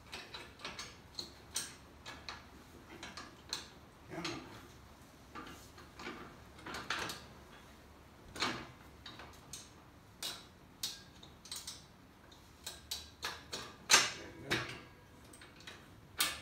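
Irregular metallic clicks and clanks of the steel log-dolly clamp and its pin being fitted to a Logrite hauler cart's steel frame, with one louder clank about 14 seconds in.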